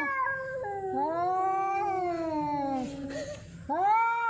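Cats caterwauling at each other in a territorial standoff before a fight: long, drawn-out yowls that waver slowly in pitch, one after another, with a short break shortly before the end.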